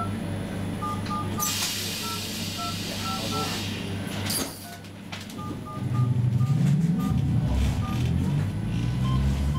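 Inside a Roslagsbanan X10p electric train at a standstill: a steady low hum with repeated short two-tone electronic beeps, and a burst of air hiss about a second and a half in that lasts about two seconds. From about six seconds the traction motors start up, a louder low hum rising in pitch as the train begins to move off.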